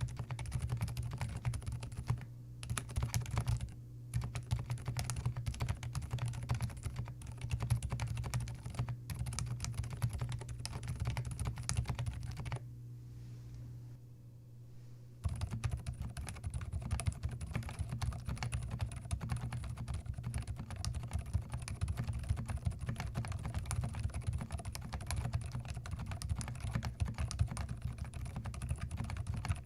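Typing on a Zoom TKL mechanical keyboard fitted with WS Silent Linear switches: a fast, continuous run of keystrokes, with a pause of a couple of seconds about halfway through.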